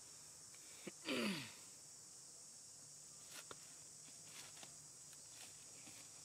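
Insects droning steadily at a high pitch in the forest. About a second in, a short, loud animal call slides steeply down in pitch. A few faint clicks come later.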